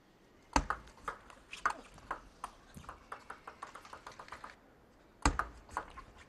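Table tennis ball clicking off bats and table in irregular sharp ticks. The loudest knocks come about half a second in and again about five seconds in.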